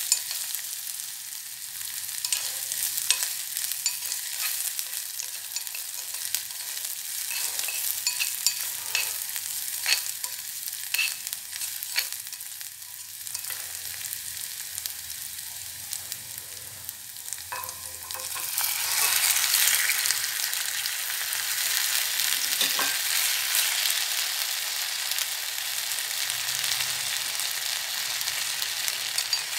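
Food sizzling as it fries in oil in a pot, with a utensil clicking and scraping against the pot as it is stirred. The sizzle swells louder about two-thirds of the way through.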